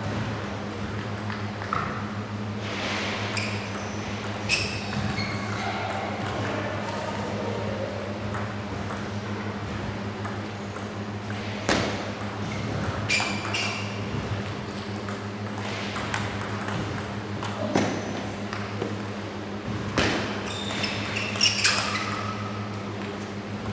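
Table tennis ball clicking off the bats and table, sharp single knocks spaced a second or more apart and coming closer together near the end in a rally, over a steady low hum.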